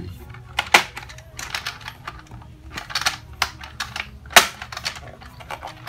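Hard plastic clicks and knocks from the Toyota Altis climate-control panel housing being handled and pressed back together, at an uneven pace, with two louder sharp snaps, one near the first second and one at about four and a half seconds.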